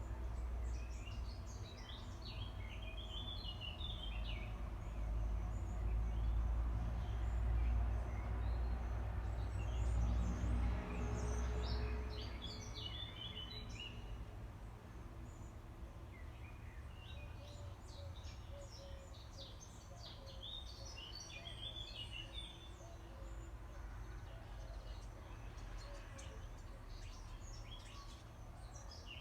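Birds singing in repeated bouts of quick, high chirps, over a steady low rumble that eases off about twelve seconds in.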